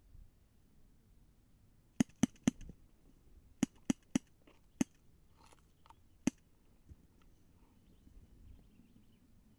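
Airsoft pistol firing eight sharp shots: a quick burst of three about two seconds in, another three about a second and a half later, then two single shots, with a few fainter clicks between.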